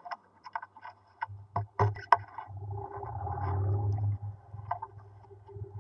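Sharp knocks and scrapes as a camera is handled against a wooden nesting box, then a low steady hum that comes in after about a second and swells midway.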